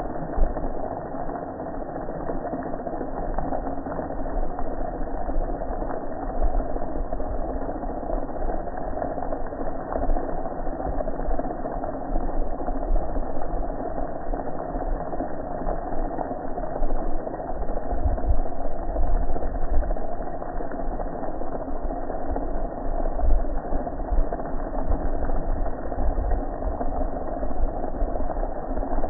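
Pressure washer running steadily while its wand sprays water onto a gas grill.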